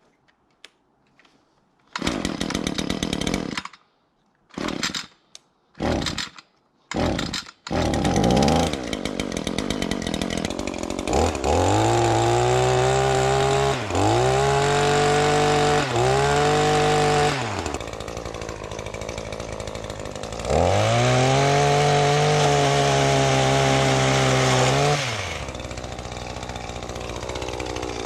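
Gas two-stroke chainsaw in short choppy bursts at first, then running steadily and revving up to full throttle four times, the longest near the end, dropping back to idle between.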